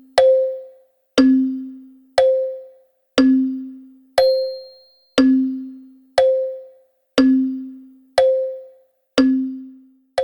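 Wall clock ticking once a second, the strokes alternating between a higher and a lower tick (tick-tock). Each tick is a sharp click with a short ringing tone that fades before the next.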